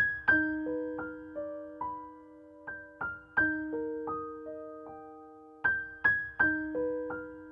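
Background piano music: a slow, gentle melody of single notes, each struck and left to ring and fade.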